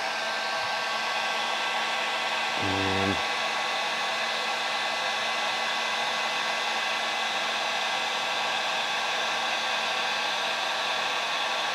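Electric heat gun running steadily, heating a solder-seal wire connector until the solder inside melts.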